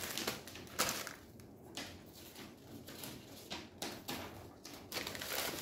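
Newspaper wrapping rustling and crinkling as it is pulled open by hand, in irregular handfuls.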